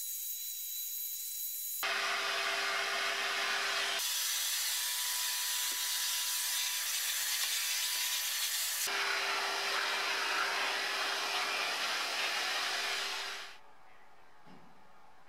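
Vacuum cleaner running with a brush attachment worked over a vinyl car dashboard: a steady rushing hiss of suction with a motor whine in parts, changing abruptly several times. It stops about 13 seconds in.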